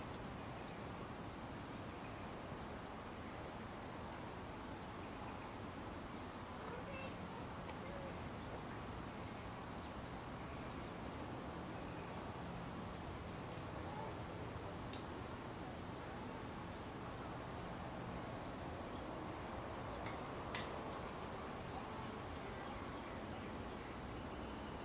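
Faint outdoor insect chorus: one insect repeats a short high double chirp about once a second over a steady high hum and a low hiss.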